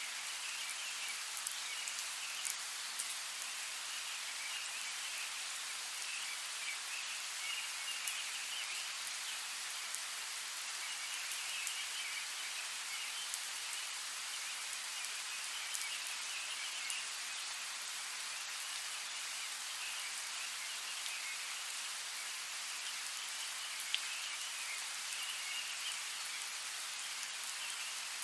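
Steady rain, a continuous hiss with scattered single drops ticking close by. A high chirring comes and goes behind it.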